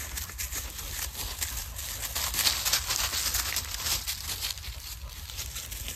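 Dry leaf litter rustling and crunching under footsteps: a continuous run of small irregular crackles, a little louder in the middle, over a low rumble on the microphone.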